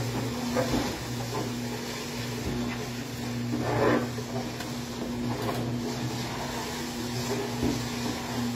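Ballmatic 1000 dough ball rounder running with a steady motor hum while a dough ball rolls around its spinning bowl. A few soft knocks sound from the dough against the bowl, the loudest about four seconds in.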